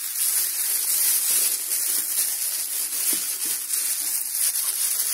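Steady hissing noise, strongest in the highest pitches, with a couple of faint rustles about three seconds in.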